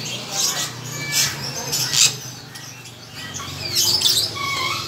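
Many caged birds chirping, with short high chirps and a few sliding whistled notes scattered throughout, over a steady low hum.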